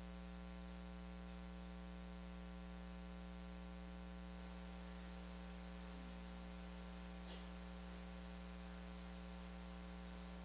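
Steady electrical mains hum with a faint hiss from the sound system, unchanging throughout; no piano is heard.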